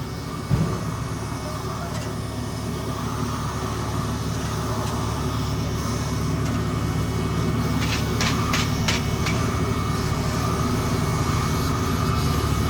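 Heavy asphalt-paving equipment's diesel engine running steadily, with a thump about half a second in. A run of sharp clicking or rattling, about three a second, comes in about two-thirds of the way through.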